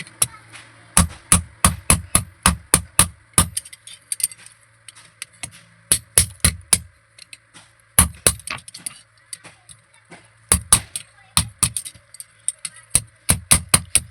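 Blacksmith's hammer striking metal on an anvil in quick runs of blows, about four strikes a second, with short pauses between the runs. A faint steady hum runs underneath.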